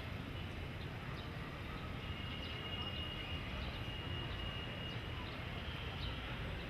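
Street traffic ambience: a steady low rumble of vehicle engines. A faint high steady tone is held for about three seconds in the middle.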